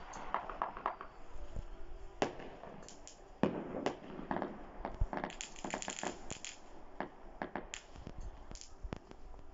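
Fireworks going off: scattered sharp bangs with stretches of crackling. The bangs come about two, three and a half and five seconds in. The densest crackle runs from about five to six and a half seconds.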